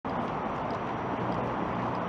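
Steady city street ambience: a constant wash of vehicle and traffic noise with a low steady hum underneath.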